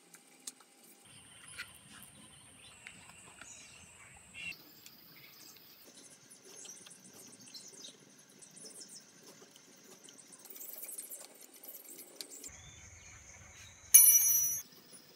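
Faint clicks and taps of bicycle parts being handled and fitted by hand, then near the end a single brief, loud metallic ring that dies away quickly.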